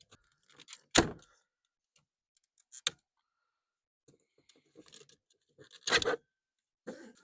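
Plastic push-in trim clips on a 1997 Chevy 1500's door panel being pressed and popped out: three sharp snaps, about a second in, near three seconds and around six seconds, the first the loudest, with light plastic clicking and rattling between.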